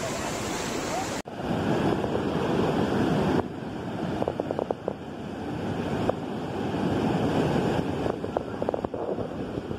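Muddy floodwater rushing and churning in a river in spate, a steady loud noise of fast-moving water. The sound changes abruptly about a second in and again after about three and a half seconds, where the video cuts between clips.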